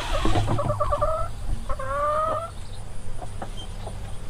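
Young olive egger and Easter egger chickens calling: drawn-out calls that rise in pitch. One ends about a second in, and a second starts a little under two seconds in.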